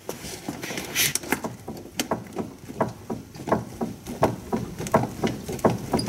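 Front suspension of a 2013 Hyundai Santa Fe clunking again and again as the car is bounced by hand, a quick run of knocks several a second. The clunk comes from a worn front sway bar link.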